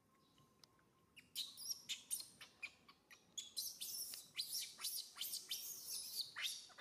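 Baby macaque screaming in a rapid run of short, high-pitched shrieks, starting about a second and a half in: the distress cries of an infant being pushed away and refused milk by its mother.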